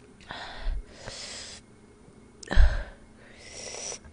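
A woman breathing hard through her mouth against the burn of very spicy fire noodles: two rounds of a breathy puff followed by a longer, higher hissing breath. The second puff, about two and a half seconds in, is the loudest and pops on the microphone.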